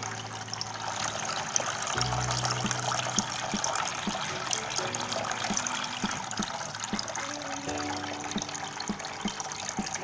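Water pouring from three small spouts into the basin of a tabletop fountain: a steady splashing trickle. Soft background music plays under it.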